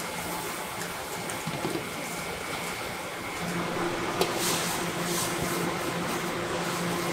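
Steady hiss and hum of a gas wok burner under a carbon-steel wok. About four seconds in, a metal ladle clanks once against the wok, and stir-fried noodles then sizzle in bursts of hissing as they are tossed.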